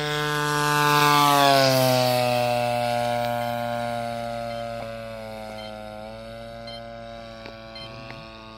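Giant-scale RC Edge 540 aerobatic plane's 55cc two-stroke gas engine and propeller on a low flypast: the engine note is loudest about a second and a half in and drops in pitch as the plane passes, then fades as it climbs away, with a brief change in pitch about five to six seconds in.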